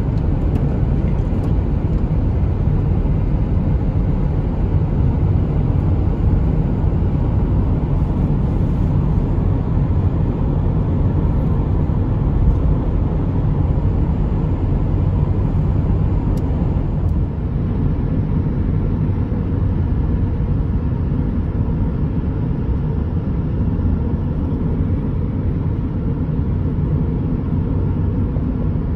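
Steady low rumble of a car driving at speed, heard from inside the cabin: tyre and engine noise with no breaks, stepping down slightly about two-thirds of the way through.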